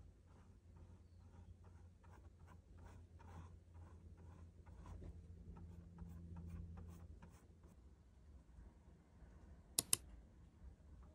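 Faint soft scratching of a flat paintbrush dabbing paint onto canvas in short repeated strokes, over a low steady hum. Two sharp clicks close together near the end.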